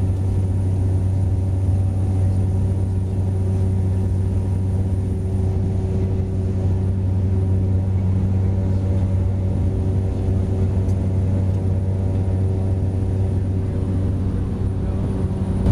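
Cabin drone of a Cessna 208 Grand Caravan's single PT6A turboprop engine and propeller, heard from inside the passenger cabin. It is a steady hum with a strong low tone and a stack of even overtones above it, holding level throughout.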